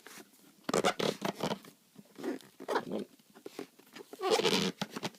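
Cardboard product box being worked open by hand: a few short bursts of scraping and rubbing as the lid and packaging slide against each other.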